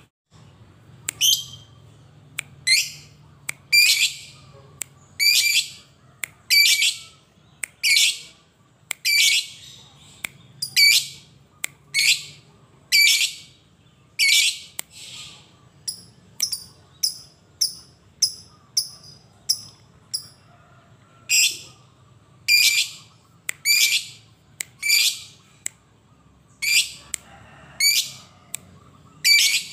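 Lovebird giving loud, harsh, high-pitched shrieking calls, one roughly every second, with a run of shorter, quicker chirps about halfway through.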